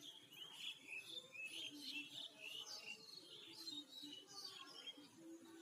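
Small birds chirping: many short, quick calls overlapping, thinning out near the end.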